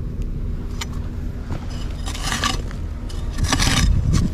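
Loose earth scraping and crumbling at a freshly dug-out burrow: a few scattered clicks and two rough rustling bursts, about two and three and a half seconds in, over a steady low rumble.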